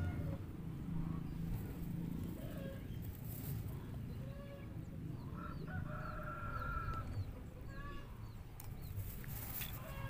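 Domestic fowl calling at intervals, with a longer drawn-out call about six seconds in. Faint small-bird chirps and a low rumble run underneath.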